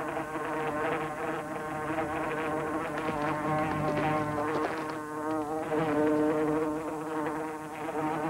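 A fly buzzing loudly and without a break, its nasal pitch wavering slightly as it moves about.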